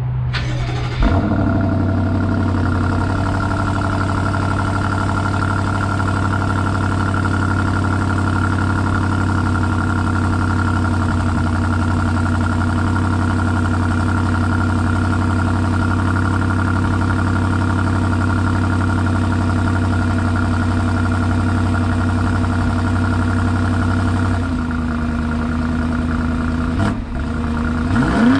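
2020 BMW X5 M50i's 4.4-litre twin-turbo V8, heard at its quad exhaust tips, starting with a loud flare about a second in, then idling steadily. About 24 seconds in the idle settles lower, and near the end a quick throttle blip rises and falls.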